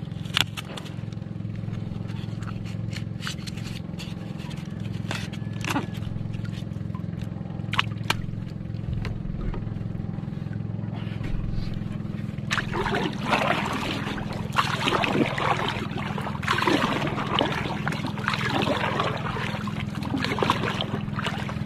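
A few knocks and scrapes as styrofoam floats and gear are handled in a small outrigger boat, then, from about halfway through, a wooden paddle dipping and splashing in the water with each stroke. A steady low hum runs underneath.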